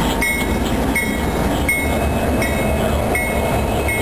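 Freight train rolling past with a steady rumble, its wheels clicking over rail joints about every three-quarters of a second.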